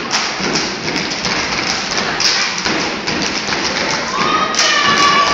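Step team stomping and clapping on a stage, giving scattered sharp thuds and slaps over a steady rush of audience noise. A high yell rises and holds near the end.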